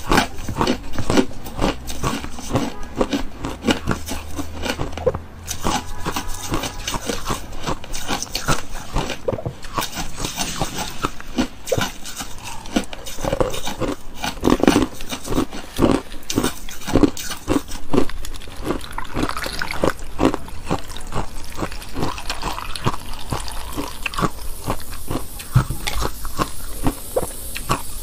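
Close-miked crunching of crushed frozen ice being chewed: a dense, irregular run of crisp cracks and crackles as the ice chunks break between the teeth.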